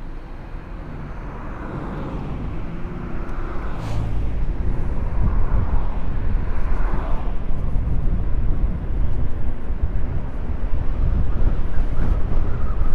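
Wind rushing and buffeting over the microphone while riding an electric moped. It gets louder over the first few seconds as the moped picks up speed. Road and traffic noise with some passing whines runs underneath.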